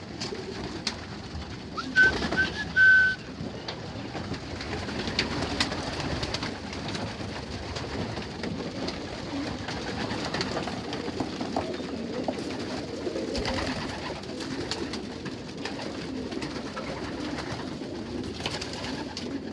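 Young racing pigeons cooing steadily in a loft, with scattered sharp taps from the birds at their feed. About two seconds in, three short, high whistle notes call the birds in; these are the loudest sounds.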